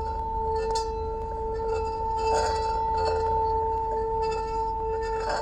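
Metal singing bowl rubbed around its rim with a wooden stick, singing a steady two-tone hum that does not fade, with faint higher overtones. The stick chatters against the rim in a few brief scratchy moments.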